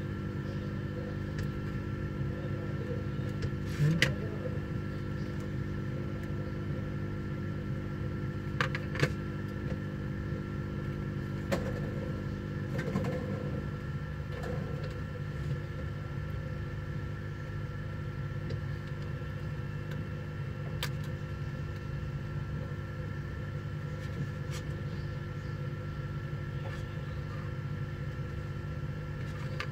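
Hot-air rework station handpiece blowing steadily, a constant hum and rush of air, used to dry a water-damaged iPhone logic board. A few light clicks and knocks come from the bench.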